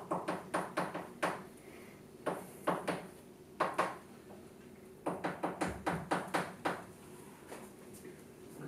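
Chalk writing on a blackboard: quick runs of sharp taps and short scratches as the strokes go down, with brief pauses between the runs.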